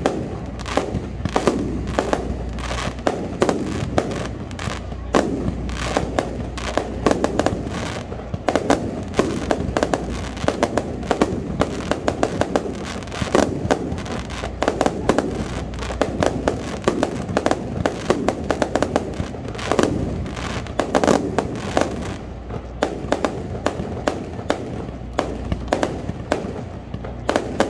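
Fireworks display heard up close: a dense, unbroken run of sharp bangs and crackles, several a second, at an irregular rhythm.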